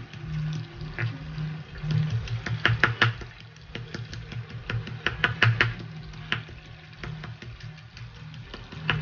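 Stone pestle pounding in a granite mortar, crushing shallots, garlic and chillies: irregular sharp knocks of stone on stone, some in quick runs.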